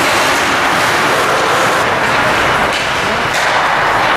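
Ice hockey rink din during play: a steady loud hiss of noise with a few sharp knocks, such as sticks or the puck hitting the boards.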